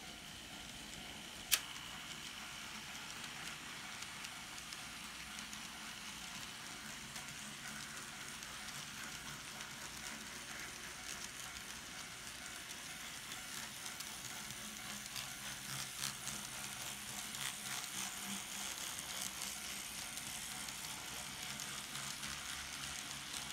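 N scale model freight train running on the layout track: a faint steady rolling hiss of small wheels and motor, which grows a little louder, with a low hum and light ticking, from about halfway through as the train passes close. One sharp click about a second and a half in.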